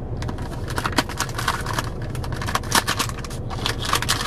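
Cardboard snack box being opened and handled: a run of irregular crinkles and clicks, with sharper snaps about a second in and near three seconds. A steady low hum runs underneath.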